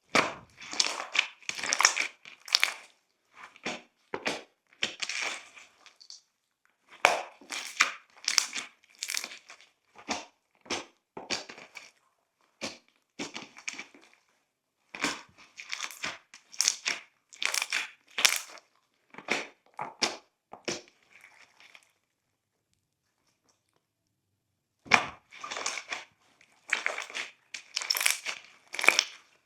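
Slime being squished and worked by hand, crackling and popping in quick clusters. The crackles stop for about three seconds a little past two-thirds of the way through, then start again.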